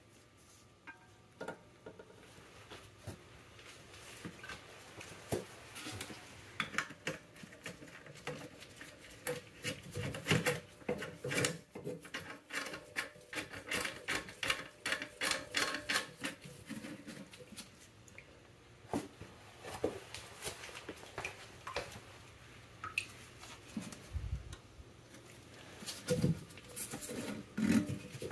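Irregular plastic clicks, taps and rubbing as a new toilet fill valve is handled and seated in a ceramic toilet tank, thickest in the middle and near the end.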